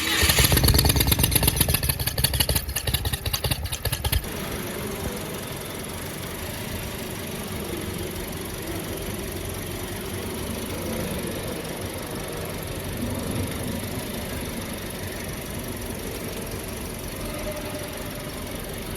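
Toyota Yaris engine running just after starting. It is louder, with a fast even pulsing, for about the first four seconds, then drops suddenly to a steady idle.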